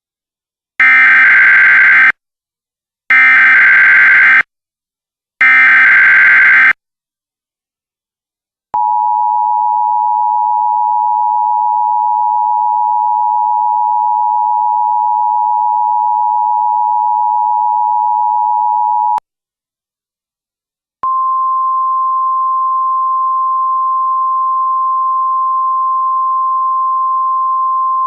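Emergency Alert System SAME header: three short bursts of buzzy digital data tones about a second apart, then the two-tone EAS attention signal held steady for about ten seconds. After a two-second pause, the single steady 1050 Hz NOAA Weather Radio alert tone starts and keeps on.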